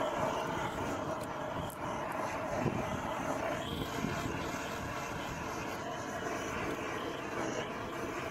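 Hose-fed gas torch burning steadily with an even rushing hiss, used to heat-shrink the cable joint's sleeves.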